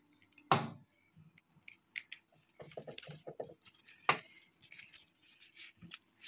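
Oil-seared banana leaf rustling and crinkling as it is folded by hand into a parcel, with two sharp clicks, about half a second in and about four seconds in.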